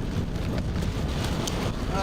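Strong tornado winds buffeting the car and the microphone: a steady, deep rush of wind noise, with a few faint ticks in the middle.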